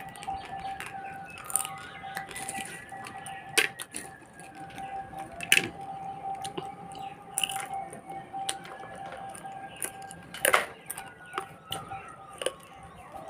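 Fingers mixing soft mashed food on a ceramic plate, with sharp clicks of fingers and a ring against the plate, several times. A faint steady tone and a shifting melody run underneath.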